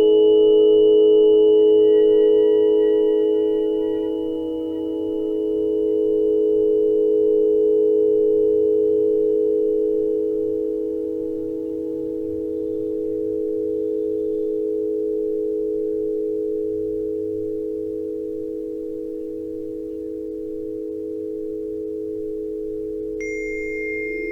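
Tuning forks ringing together as several steady pure tones, swelling and fading slowly in loudness as they beat against each other. Near the end a new, higher tone is struck and joins in.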